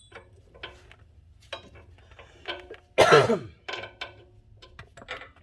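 Scattered light metallic clinks and taps of hand tools and sway bar end link hardware being handled, with one loud cough about three seconds in.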